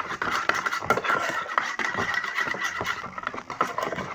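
Homemade white-glue slime being mixed in a bowl: a quick, irregular run of sticky clicks and scrapes as the glue is worked with the activator.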